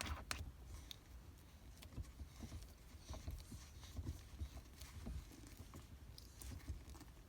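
Aftermarket shift knob being screwed by hand onto a car's gear lever: faint, irregular light clicks and taps.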